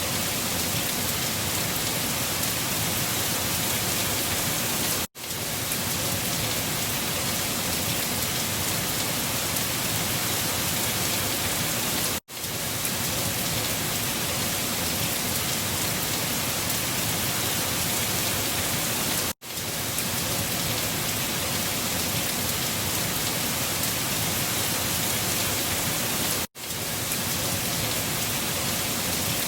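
Steady, dense rushing storm noise with no distinct gusts or drops standing out. It cuts out for a split second four times, about every seven seconds, where a short recording loops back.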